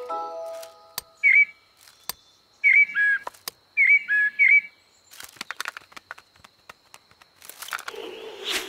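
A cartoon blackbird's short, high whistled chirps, several two-note calls in quick groups, as a chiming music phrase dies away. Near the end a rustling, rising whoosh comes in.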